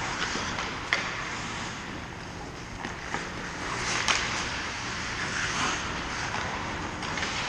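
Ice hockey skates scraping and hissing on rink ice over a faint steady low hum, with two sharp clacks of stick on puck, about a second in and about four seconds in.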